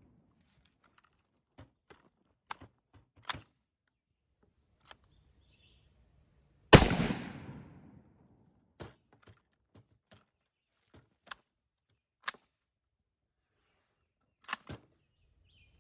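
Carcano M91 cavalry carbine fired once about seven seconds in, the shot echoing away over about a second. Before and after it come scattered sharp metallic clicks and clacks of the bolt being worked to chamber the next round, with a louder pair of clacks near the end.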